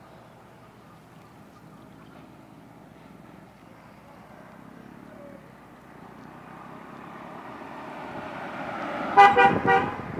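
Road traffic noise building steadily louder, then a vehicle horn gives three short toots in quick succession near the end.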